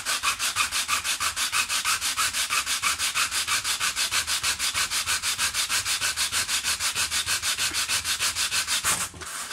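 A piece of hard plastic chassis offcut scrubbed back and forth on 100-grit sandpaper, grinding off fine plastic dust. Rapid, even hissing strokes, about seven a second, with a brief pause just before the end.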